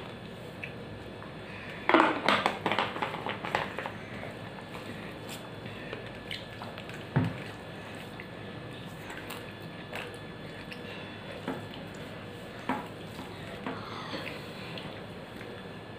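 Eating by hand from a steel plate: fingers squishing and mixing rice with fried food, and chewing. A dense run of clicks and crackles lasts about two seconds, starting about two seconds in, and there is a single knock about seven seconds in, with a few scattered clicks after.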